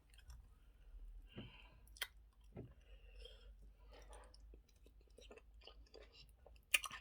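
A person chewing a mouthful of eba and okra soup close to the microphone: soft wet mouth sounds broken by scattered small clicks and smacks.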